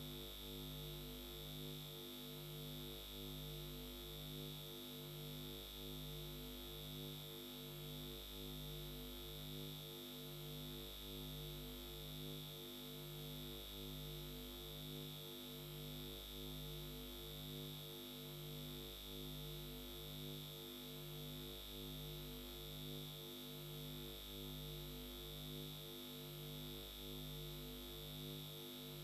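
Faint electronic synthesizer drone repeating steadily: a low tone swelling about every two and a half seconds under a mid tone pulsing about twice a second, with a thin high tone above.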